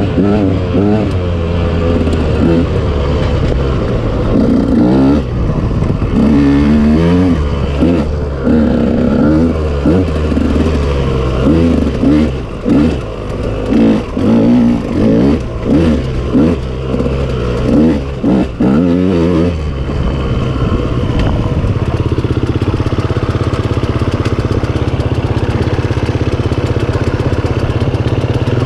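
KTM off-road motorcycle engine being ridden, its revs rising and falling with the throttle, with a run of quick rev-ups and cut-backs in the middle, then holding a steadier pitch near the end.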